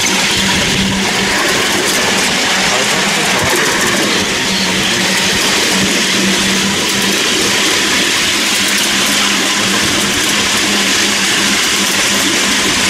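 Miniature electric locomotive and ride-on cars running along the track: a steady noisy rumble of the train in motion with a steady low hum underneath.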